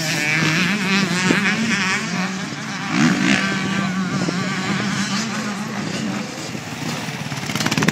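Several motocross dirt bike engines revving as the bikes race along the track and through a turn. The pitch rises and falls with the throttle, with a sharp rev-up about three seconds in.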